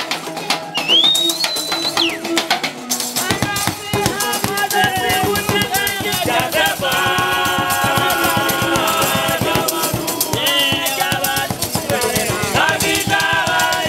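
Live band music on homemade instruments: a strummed homemade guitar over a busy shaken-rattle beat. A high whistle-like note rises and holds about a second in.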